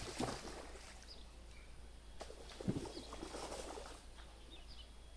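Water splashing in two bouts, one right at the start and a longer one from about two to four seconds in with a thump near its peak: a hooked grass carp thrashing at the surface during the fight.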